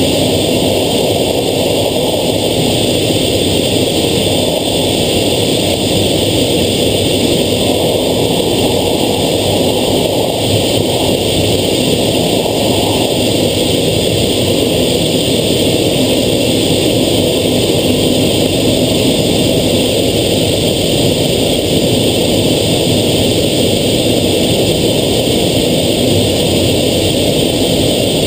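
F/A-18 fighter jet's engines and airflow heard from inside the cockpit, a loud, steady noise during the approach to a carrier landing.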